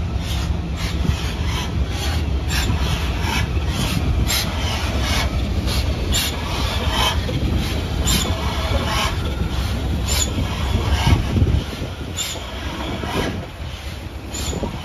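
BR Standard Class 9F 2-10-0 steam locomotive passing slowly at low speed. A steady low rumble runs under sharp knocks and clanks that come about twice a second, and the rumble drops away about twelve seconds in.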